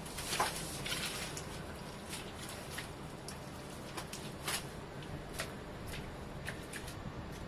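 Wet mud squelching and slapping under a body crawling and rolling through it: scattered short, soft splats, the strongest about half a second in and again about four and a half seconds in, over a steady low hum.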